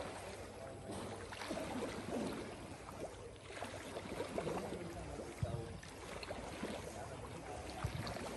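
Water splashing and sloshing as a swimmer swims breaststroke, with irregular louder splashes as the arms and kick break the surface.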